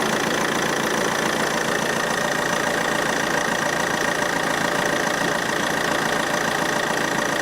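Car engine idling steadily with the air conditioning running at full, while refrigerant is charged into the system through the low-pressure side, with a constant high whine over it.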